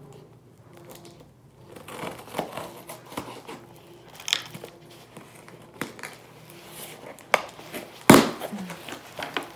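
Cardboard shipping box being cut open with scissors and its flaps pulled apart: crinkling and scraping of tape and cardboard, starting after about two seconds, with scattered sharp clicks, the loudest a snap about eight seconds in.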